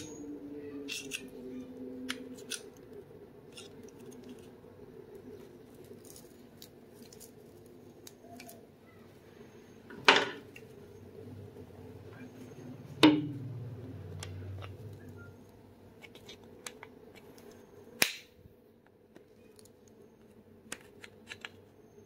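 Sharp cracks and small clicks as an old paintbrush's plastic handle is broken away from its rusty metal ferrule: three loud snaps, about ten, thirteen and eighteen seconds in, among lighter ticks and handling rustle.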